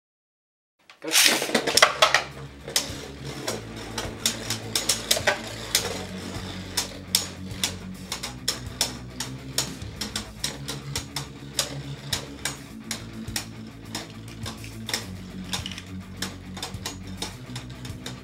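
Two Beyblade Burst spinning tops, one of them Drain Fafnir, launched into a plastic stadium: a loud clatter as they land about a second in, then a steady whir of the tops spinning on the stadium floor, with frequent sharp clacks as they strike each other.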